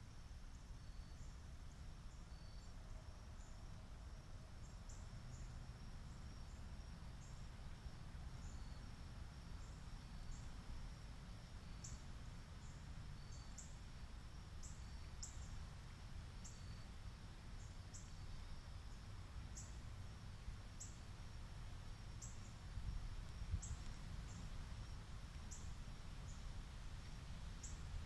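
Faint evening insect chorus: a steady high trill with short, high chirps repeating irregularly about once a second, over a steady low rumble.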